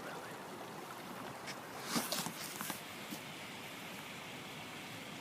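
Faint, steady rush of a small river, with a short cluster of handling rustles and clicks about two seconds in.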